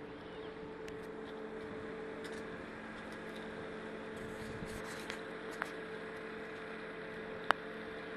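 Small open canal boat's motor running at a steady cruise: a steady hum under a hiss of water and air. A sharp click about seven and a half seconds in.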